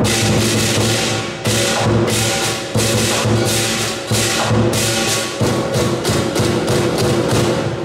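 Southern Chinese lion dance percussion: the big lion drum beating with cymbals crashing two or three times a second and a gong ringing underneath, the beat driving a lion's high-pole routine.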